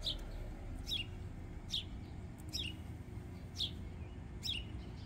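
A bird singing a series of repeated steeply down-slurred chirps, a little under one a second, over a low steady background rumble.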